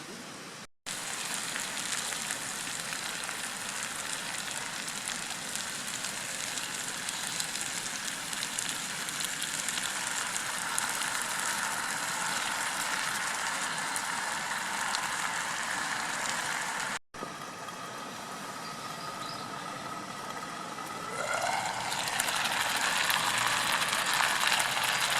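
Pork steaks and onions sizzling in a frying pan on a camp stove: a steady crackling hiss. It breaks off for an instant twice.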